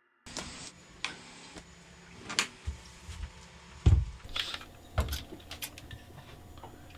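A string of separate knocks, clicks and clunks of hard objects being handled, the loudest about four and five seconds in, over a faint steady hum.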